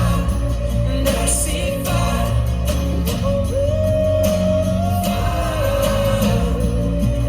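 A song with a singing voice and a held, gently gliding melody over heavy bass, played through an aftermarket car audio system with FLUX component front speakers, a JL Audio amplifier and a subwoofer.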